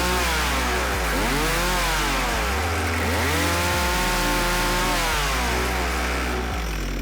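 Two-stroke chainsaw running at high revs, its engine pitch dipping sharply and climbing back twice, about a second in and again near three seconds, then easing down near the end.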